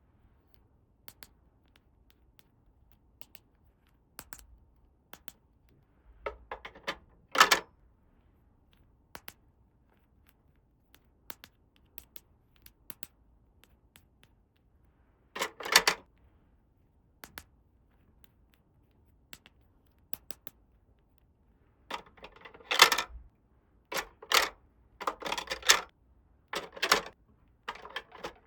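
Small plastic toy pieces being unpacked and handled: scattered light clicks and taps, with a few short, louder rustling scrapes, several in quick succession near the end.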